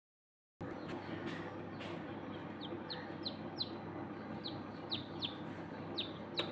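Newly hatched chicks peeping in an incubator: about nine short, high peeps that each fall in pitch, over the incubator's steady hum. The sound is cut to silence for the first half second.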